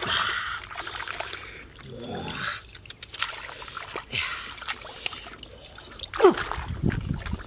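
Hands splashing and scooping in shallow muddy ditch water while feeling for fish, in short irregular bursts. About six seconds in there is a louder moment with a falling pitched call.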